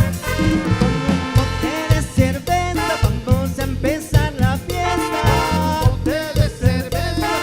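Latin dance band playing an upbeat song, with a melodic lead over bass and percussion on a steady beat.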